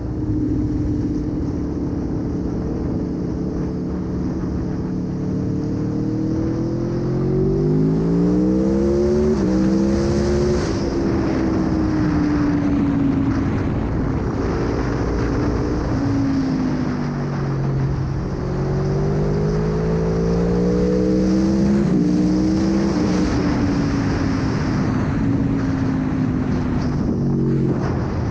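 Aprilia Tuono V4 1100 motorcycle's V4 engine accelerating under way, its pitch rising through the revs and dropping at upshifts about a third of the way in and again around three quarters through, then falling as the throttle eases off. A steady rush of wind runs underneath.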